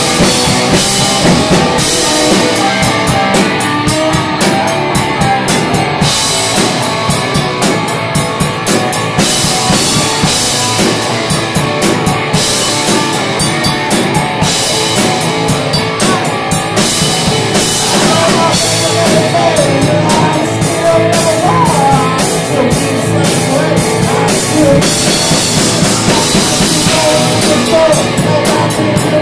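Live rock band playing loud: electric guitar over a drum kit, with cymbal crashes recurring throughout.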